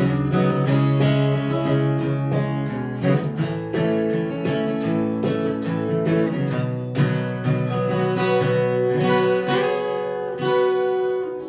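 Acoustic guitar playing an instrumental break in a country song: a quick run of picked single notes over strummed chords, with no voice.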